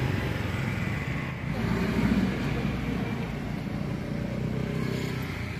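Street traffic noise: a steady din of passing vehicles, with an engine swelling and fading about two seconds in.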